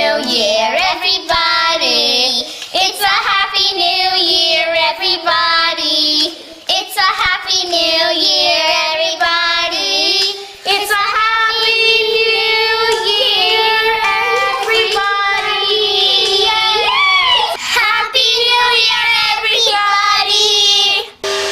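A child's voice singing a song in long held, wavering notes, breaking off suddenly just before the end.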